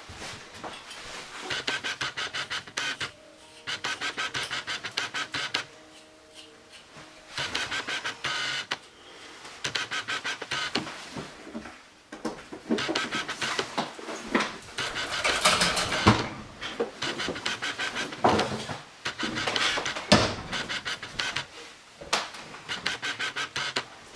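Camera's autofocus lens motor ticking and whirring in repeated bursts of a second or two, with short quiet gaps between them. Some sharper knocks and scrapes of handling come in the second half.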